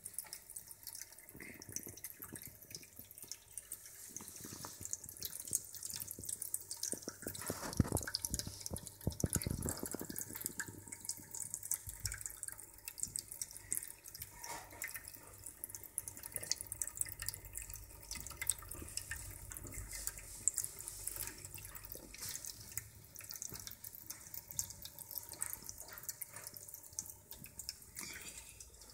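Cat drinking fountain running: thin streams of water trickling and splashing steadily into the bowl, with a few louder bumps about a third of the way in.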